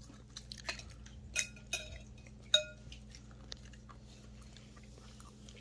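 Cutlery clinking and scraping against dishes during a meal, with a few sharp clinks that ring briefly; the loudest comes about two and a half seconds in. A steady low hum runs underneath.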